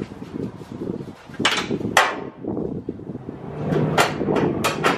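Sharp metal knocks and clanks of tools on the car, two spaced strikes and then a quicker run of them near the end, as the wheel and its lug nuts are worked off.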